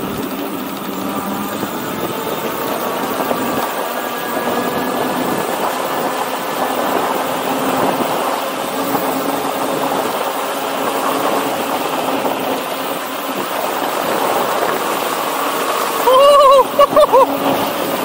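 Steady rush of wind over the microphone and tyre noise from an e-bike riding at speed, with a faint whine from its 2000 W rear hub motor. Near the end come a few loud, short rising-and-falling cries.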